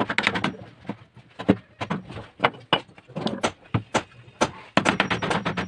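Claw hammer striking the handle of a wood chisel, driving the blade into a pine block to chop out a spoon blank. The blows are sharp, irregular knocks, a few a second.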